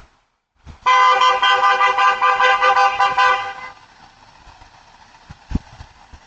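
Car horn sounding in one long, loud blast of about three seconds from a car driving past, then dying away to a faint steady noise. A single sharp thump comes near the end.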